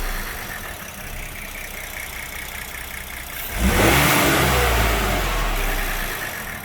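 Car engine idling, then revved hard once about three and a half seconds in and easing back toward idle. The revving is done to bring out a rattle that Ford service could not trace.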